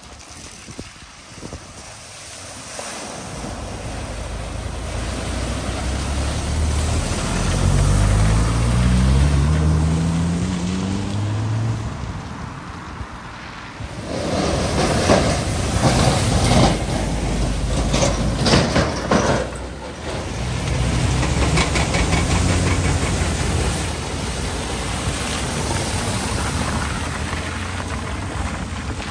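Cars driving through shallow floodwater and along the wet road: an engine note rising as one car accelerates away, then a loud rush of splashing water, then another car's engine running with tyres hissing through the water.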